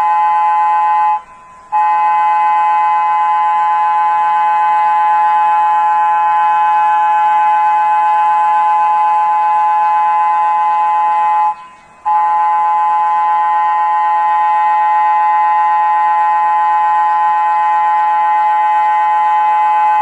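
TOA Signal outdoor warning siren being tested, sounding a loud, steady horn-like tone that does not rise or fall. The blast breaks off for about half a second about a second in, and again about twelve seconds in.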